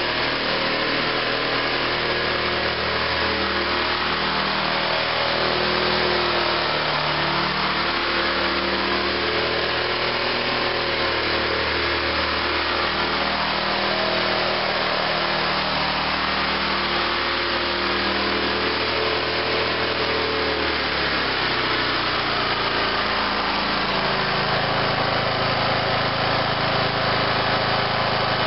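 Riding lawn tractor's small engine running with wavering pitch, then slowing to a lower, steady note about three quarters of the way through.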